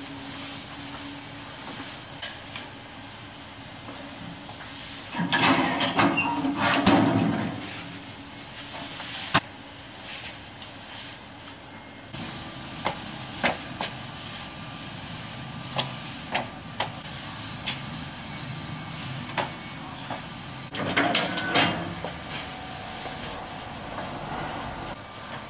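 Wet cotton-string mop swishing and dragging over wet ceramic floor tiles in two rough bouts, about five seconds in and again near the end, with scattered light clicks and taps in between over a steady hiss.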